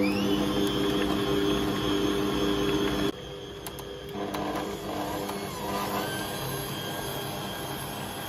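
A 1000-watt Bosch stand mixer's motor running with a steady whine as it kneads sourdough dough at medium-high speed. About three seconds in the sound drops suddenly to a quieter running sound.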